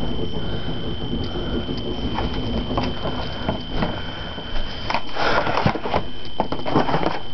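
Handheld camera handling noise: rustling, scattered clicks and knocks as the camera is moved about, with a louder rustle about five seconds in, over a steady high whine.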